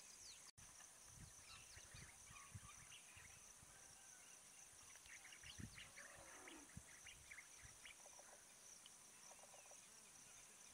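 Faint outdoor ambience: a steady high insect trill, with scattered short bird chirps and soft low thumps.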